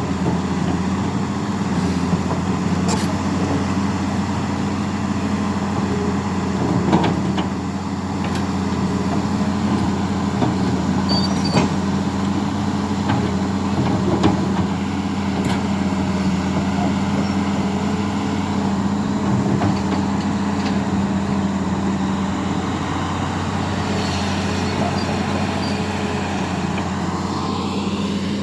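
Hitachi hydraulic excavator's diesel engine running steadily under work, with a few sharp knocks now and then.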